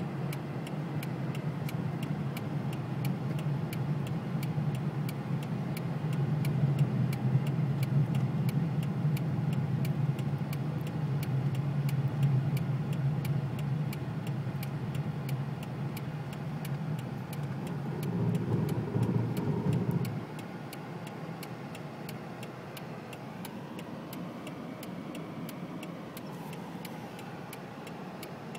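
Engine and road noise inside a car's cabin while driving on snowy, icy roads: a steady low hum that swells briefly about 18 seconds in, then drops to a quieter hum about 20 seconds in. A fast regular ticking, a few ticks a second, runs underneath throughout.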